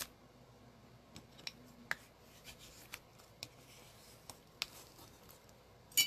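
Paper card stock and crafting tools being handled: scattered light clicks and taps, with a sharper click near the end.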